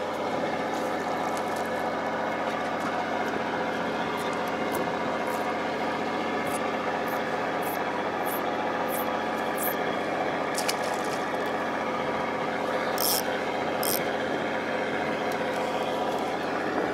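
Steady drone of the fishing boat's engine running, with a few brief high-pitched hisses and scratches about midway and again later.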